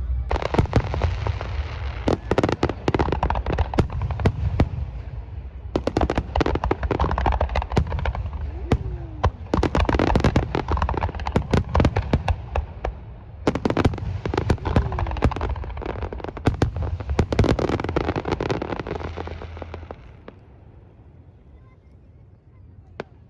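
Fireworks display: rapid crackling and bangs in three dense barrages with short lulls between, dying away about twenty seconds in.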